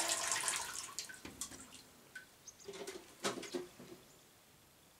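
Water scooped with a home-made dipping device in low water: a loud splash and pour at the start that fades over about a second, then sloshing and a few knocks, the loudest a little past the middle.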